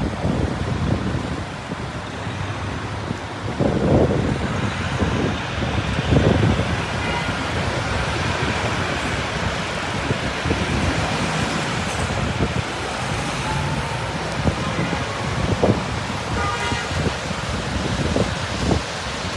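City traffic on rain-soaked streets: cars and buses passing with a steady hiss of tyres and rain on the wet road. A car horn sounds briefly about a third of the way in and again near the end.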